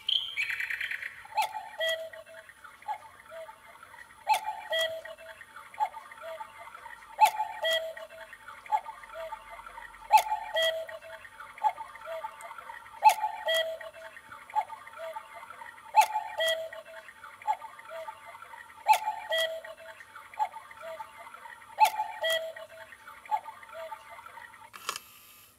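Sempre cuckoo clock from Aldi striking eight o'clock: eight falling two-note cuckoo calls about three seconds apart, each with a click from the bird's mechanism. A steady hiss sits behind the calls and cuts off just before the end.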